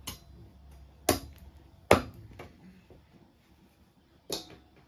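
Cleaver chopping raw chicken into small pieces on a wooden block: four or five sharp chops about a second apart, the loudest about two seconds in, with a longer gap before the last.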